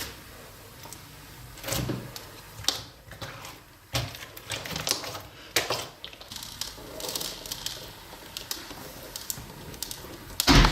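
Clear slime being handled: irregular sticky clicks, small pops and squelches, with one louder burst near the end.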